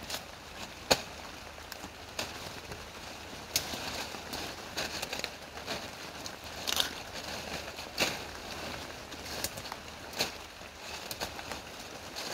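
Salal sprigs being picked by hand: stems snapping and leaves rustling, with irregular sharp snaps over a steady background hiss. The loudest snap comes about a second in.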